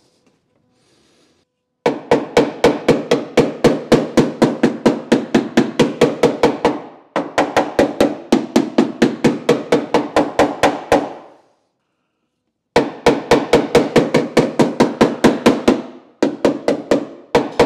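Body hammer rapidly tapping out a dent in the MGA's damaged rear body panel, in four fast runs of about five blows a second with brief pauses between. Each blow rings a little from the panel.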